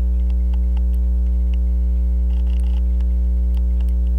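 Loud, steady electrical mains hum with a ladder of overtones, running under the recording. A few faint, scattered small clicks from work on the watch movement sound over it.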